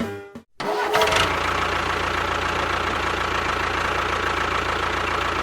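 An engine starts about half a second in, with a short rising whine, then runs steadily.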